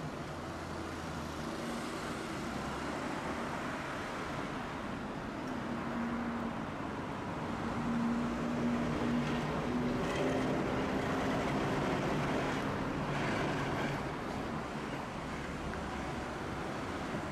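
Street traffic at an intersection: cars passing as a Tosaden streetcar runs through. A low hum swells toward the middle and fades again.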